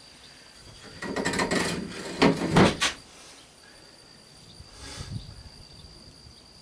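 A long aluminium level scraping against the wood and fibreglass of a boat hull, then knocking down twice in quick succession, with a lighter knock a couple of seconds later.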